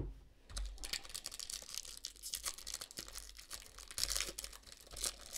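Foil wrapper of a trading-card pack being torn open and crinkled by hand, a rapid run of short crackles.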